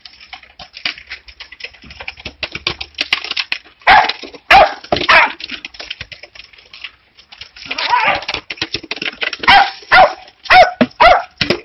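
Small terrier barking in short, repeated barks, in two bouts a few seconds apart, while it bites at a plastic drink bottle. Sharp crackling and clicking of the plastic runs between and under the barks.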